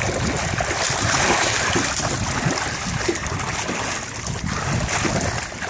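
Lake water splashing as a swimmer kicks and strokes, with wind noise on the microphone.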